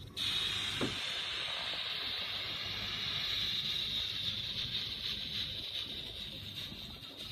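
Steam hissing steadily from a small live-steam model boiler's fittings, coming on abruptly and easing slightly toward the end, with a short knock about a second in.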